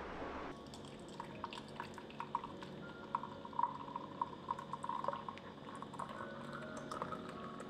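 Water pouring and dripping. A steady rush stops about half a second in, followed by a run of small drips and bubbly plops.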